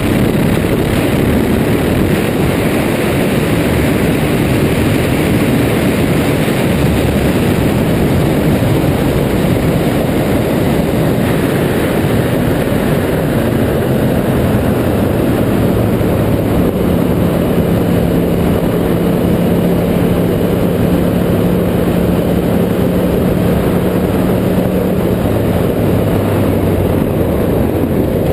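Yamaha R1 sportbike's inline-four engine running as the bike cruises along the road, heard from on board under heavy wind rush. A steady engine note settles in past the middle, then drops lower near the end.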